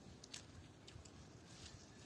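Near silence: faint background tone with a few soft ticks.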